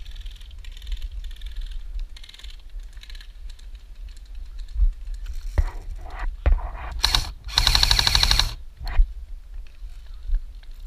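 Airsoft electric rifle firing on full auto: a short rattling burst about seven seconds in, then a longer burst of about a second. A few single sharp clicks come before.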